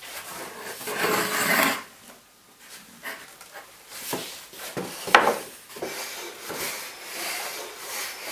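A wooden saw sled being set down on wooden rails and slid along them by hand: wood scraping on wood about a second in, then a few knocks, the sharpest just after five seconds, and more rubbing. The circular saw is not running.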